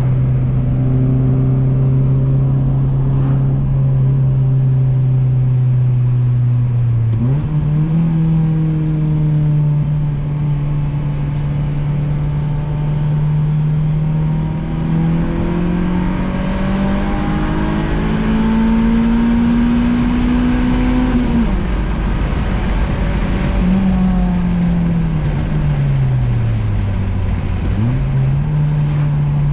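Swapped Honda H-series four-cylinder engine pulling a car along at cruise. Its steady drone steps up in pitch about seven seconds in and climbs slowly. It then drops away low for a few seconds before stepping back up near the end.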